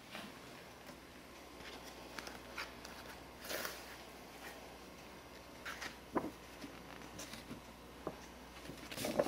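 Papers, envelopes and a scrapbook being handled in a wooden cedar chest: scattered paper rustles and soft knocks, the loudest rustle about three and a half seconds in.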